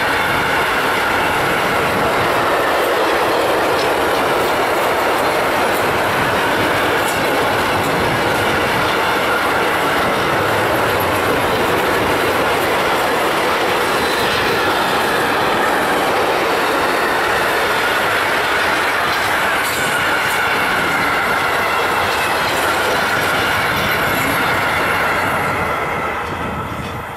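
Freight wagons of a long intermodal train, loaded with containers and tank containers, rolling past: steady loud wheel-on-rail noise with a high ringing tone over it, fading away near the end as the last wagon goes by.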